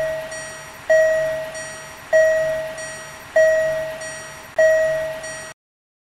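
Bell-like warning chime of an animated railroad crossing signal, struck slowly and evenly about once every 1.2 seconds, each ding fading before the next, then cutting off near the end.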